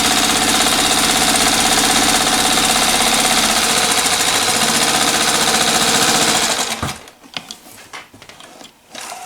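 Straight-stitch sewing machine running fast and steady, its needle mechanism clattering rapidly. It stops suddenly about seven seconds in, followed by a few light clicks.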